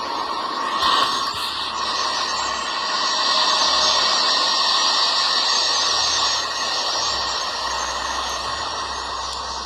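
Steady rushing hiss with a faint low drone underneath, swelling slightly partway through and easing near the end, presented as the sound of the planet Neptune.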